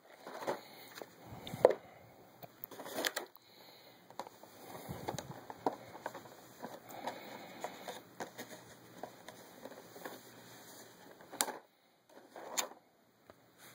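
Clear plastic packaging being handled: scattered light clicks, taps and crackling, with a few sharper clicks.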